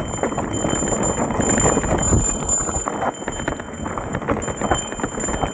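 Mountain bike descending a rough dirt and rock trail at speed: tyres crunching over loose ground and the bike rattling over a constant run of small bumps and knocks.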